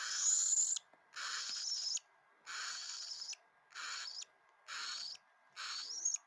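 Two-week-old cockatiel chick giving six raspy, hissing calls about once a second, several ending in a short upward squeak: the rhythmic cry of a chick begging for food.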